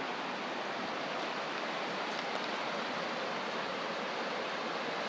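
Shallow stream flowing, a steady even rushing of water.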